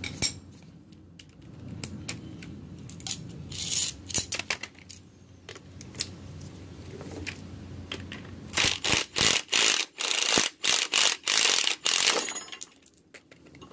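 Cordless impact wrench hammering in a run of short trigger bursts for about four seconds, working the top nut of a coilover strut whose shaft is held with locking pliers. Before it come a few scattered metal clanks and clicks of the pliers on the strut.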